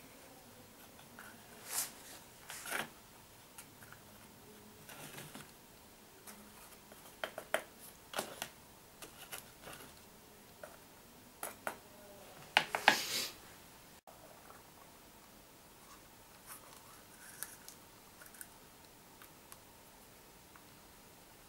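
Metal knife blade scraping and tapping against a small plastic box while scooping powder: irregular short scrapes and clicks, with a louder run of scrapes a little past the middle and only faint handling sounds after.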